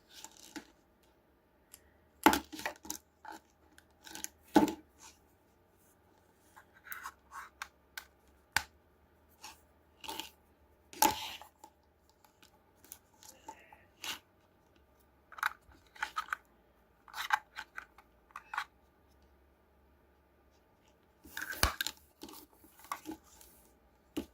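Irregular handling noises: short plastic clicks, taps and rustles of small gadget parts and packaging being handled, with busier clusters a few times and quiet gaps between.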